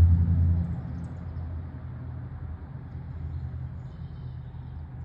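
Low engine rumble, loud at first and fading within the first second to a quieter steady rumble, like a vehicle moving away. A faint high chirp about four seconds in.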